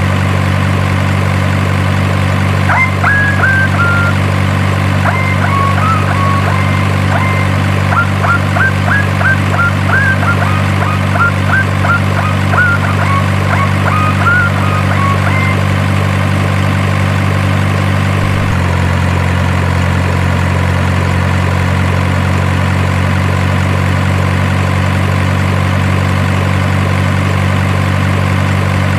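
Steady truck-engine idle sound from a radio-controlled model truck or excavator, its note changing slightly about two-thirds of the way through. Short high chirps come and go over the first half.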